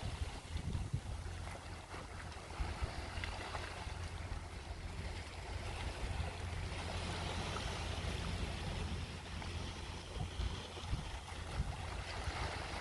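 Wind buffeting the microphone in uneven gusts, over small waves washing against a rocky shore.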